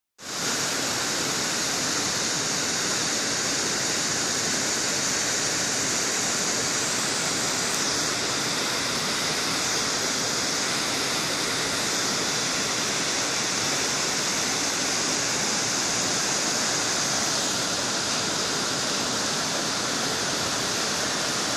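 Mountain waterfall pouring down steep rock slabs, a steady rushing hiss of falling water.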